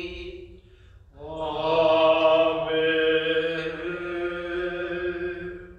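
Liturgical chant: one sung phrase ends about half a second in, and after a short pause a single long note is held steady for about four seconds.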